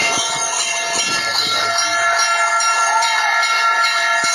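Many bells ringing together in a dense, steady wash of sustained tones, with a brief rising-and-falling tone about three seconds in.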